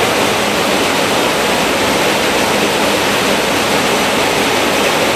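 Steady, loud rushing noise inside a military transport aircraft's cabin in flight: engine and airflow noise, with no distinct events.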